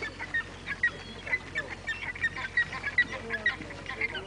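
Many birds calling together in quick, short, high notes, several a second and overlapping.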